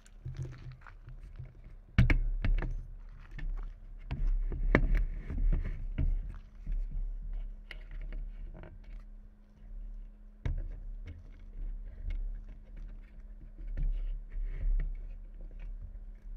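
Wind buffeting the camera microphone as a gusting low rumble, with scattered clicks and knocks from the camera being handled, the sharpest about 2 seconds in and again near the middle. A faint steady hum lies underneath.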